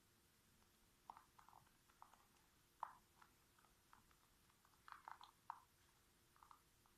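Faint, scattered small clicks and crinkles of paper craft pieces being handled and pressed into place, a little busier about three and five seconds in.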